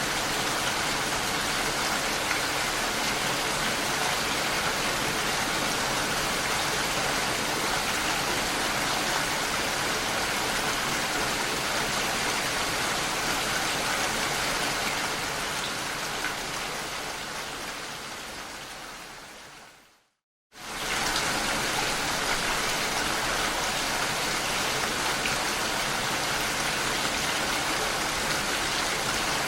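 Steady rain falling. Two-thirds of the way through it fades away to a moment of complete silence, then comes straight back at full level: the seam where the rain recording loops.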